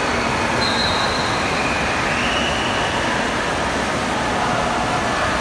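Indoor wave pool: machine-made waves breaking and churning in the shallow end, a steady loud wash of water echoing in a large hall, with a couple of brief high cries about one and two seconds in.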